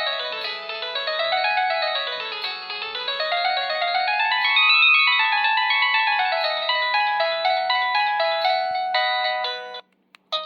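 LG VX9800 flip phone playing one of its preloaded ringtones: a quick run of synthesized notes sweeping up and down in pitch. It cuts off shortly before the end, and another ringtone starts just after a brief gap.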